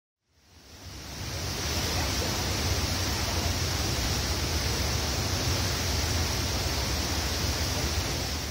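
Steady rushing noise of wind and water at sea with a low rumble underneath. It fades in over the first two seconds and starts to fade out at the very end.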